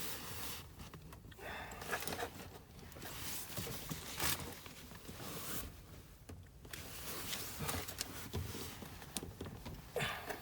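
Plastic fuel-line quick connector on a fuel pump module being worked: irregular rustling and scraping with scattered sharp clicks as the tabs are pressed and the line is tugged and wiggled. The connector has not yet come free.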